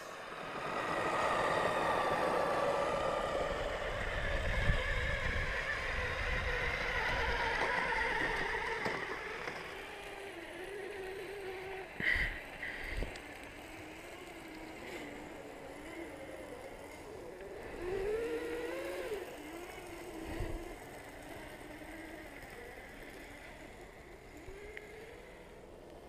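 Kyosho Blizzard SR RC snowcat's brushed 540 electric motors and metal gearboxes whining, the pitch rising and falling with the throttle. It is louder for the first several seconds, then fainter as the snowcat runs farther off, with a couple of short knocks about twelve seconds in.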